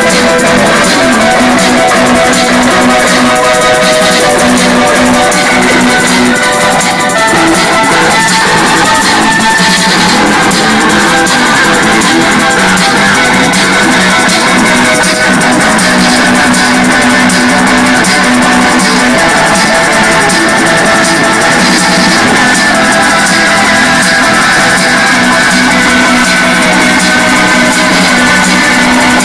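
Loud rock music: an electric guitar played live by a street busker, with drums, held near full level throughout.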